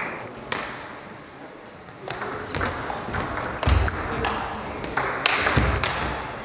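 Table tennis rally: the ball clicking sharply off bats and table, a lone click early, then a quick back-and-forth of hits about three a second from around two seconds in, with a few low thuds among them.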